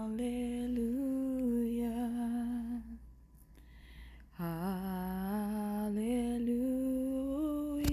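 A woman humming a slow, wordless worship melody in long held notes: one phrase, a short pause about three seconds in, then a second phrase that climbs slowly in pitch.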